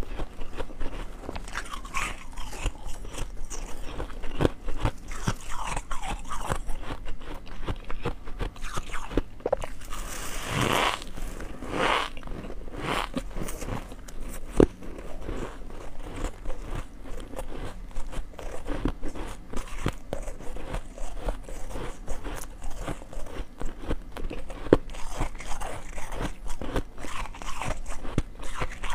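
A person biting and chewing chunks of crunchy ice close to a lapel microphone: a continuous run of crisp crackling crunches, with a few louder crunches about ten to thirteen seconds in.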